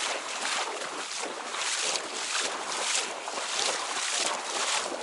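Someone wading through shallow marsh water among reeds: a rhythmic sloshing swish at each step, about two to three a second.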